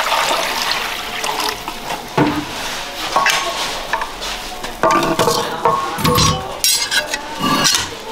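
A metal pan of water pushed and scraped along the hearth of a wood-fired bread oven with an iron rod: continuous metal-on-metal scraping with several sharp clanks in the second half. The water in the pan is there to make steam in the oven for the bake.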